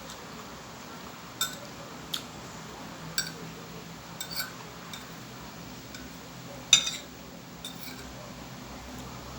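Metal cutlery clinking against a plate during a meal: a handful of short, scattered clinks, the loudest a little before the seven-second mark.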